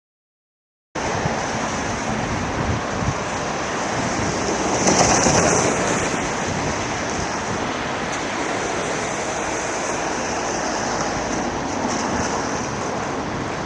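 Steady rushing of fast-flowing floodwater, starting abruptly about a second in and swelling briefly a few seconds later.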